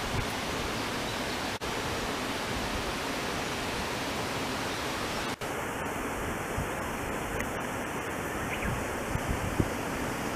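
Steady, even hiss of wet outdoor background noise, unchanging throughout, broken twice by a momentary dropout.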